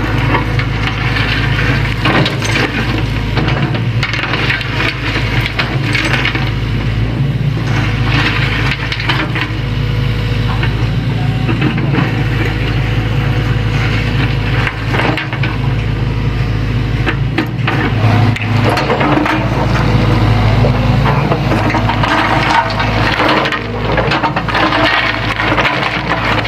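Sany hydraulic excavator's engine running steadily under load, with stones cracking, grinding and knocking irregularly as the bucket scrapes and levels stony ground.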